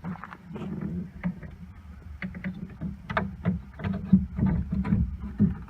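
Irregular knocks, clicks and rattles of an RV keyless door lock being handled and worked into the camper door's lock opening, over a low rumble. The knocks come thickest and loudest from about three seconds in.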